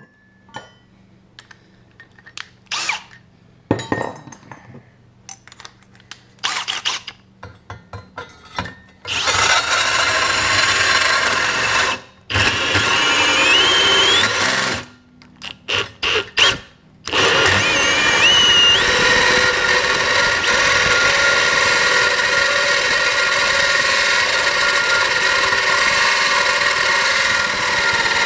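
Cordless drill driving a bi-metal hole saw into a stainless steel plate. It starts with a few knocks and short bursts, then from about nine seconds in the saw grinds against the steel, stopping and restarting briefly, with a couple of rising squeals. The steady grind holds to the end. The bi-metal teeth are flattening and heating the steel rather than cutting through it.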